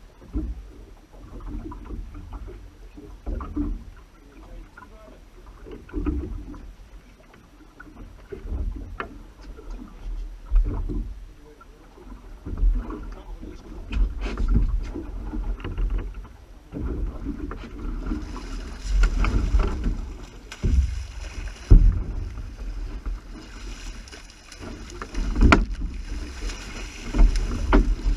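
Water sloshing in irregular surges with a low wind rumble on the microphone and a few sharp knocks; a steady hiss joins in during the second half.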